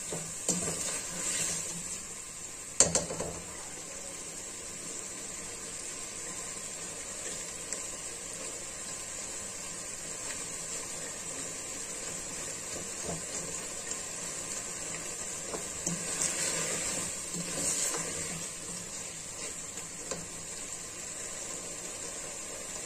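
Chicken pieces, onion and green pepper sizzling steadily in a metal pan as they are stirred with a plastic spatula, which scrapes and knocks against the pan now and then, with one sharp knock about three seconds in.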